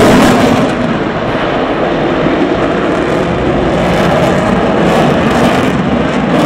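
Eurofighter Typhoon's twin jet engines giving a loud, steady jet noise during a display pass, the highest hiss thinning slightly about a second in as the jet draws away.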